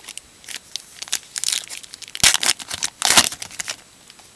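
Wrapper of a 2014 Topps Gypsy Queen baseball card pack being torn open and crinkled: several quick, irregular bursts of rustling with a sharp snap a little after two seconds in.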